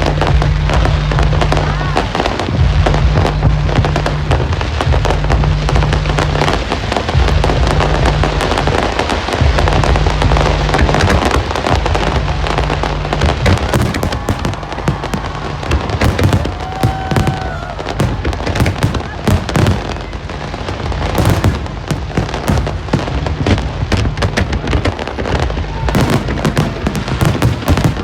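Fireworks display: rockets bursting and crackling in quick succession, the bangs coming thicker in the second half, over music with a deep, steady bass line.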